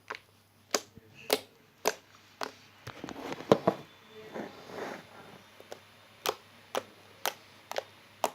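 Homemade glossy slime being squeezed and pressed in the hands, giving sharp little clicks and pops about twice a second, with a denser run of squishy crackles in the middle.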